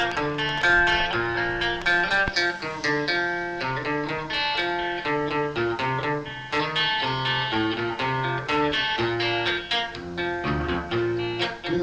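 Instrumental break in a song: a plucked string melody, likely a guitar, played over a bass line, with no singing.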